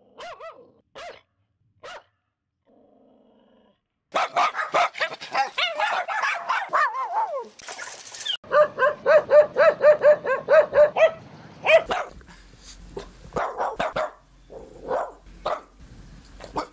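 Several different dogs barking in quick succession. First a Kai Ken gives a few single barks, then a group of Bichon Frises yap together, then one dog barks rapidly at about five barks a second, and finally a Boston Terrier barks in scattered bursts.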